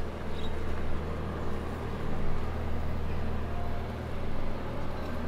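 Steady low engine hum under a haze of outdoor street noise.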